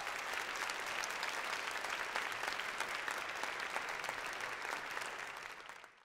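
Auditorium audience applauding at the close of a talk, a steady dense clapping that fades in the last second and then cuts off.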